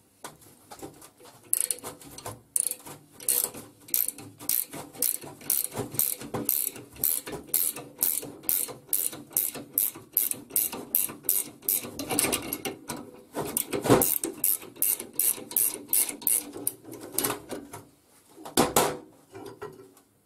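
Ratchet wrench clicking in quick, regular strokes, about three clicks a second, as it winds in the forcing screw of a small bearing puller drawing a rear wheel bearing out of a VW Beetle swing-axle tube. A louder metallic knock comes about two-thirds of the way through and another near the end.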